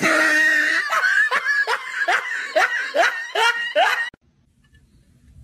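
A person laughing in a fast run of about ten 'ha' bursts, which stops abruptly about four seconds in.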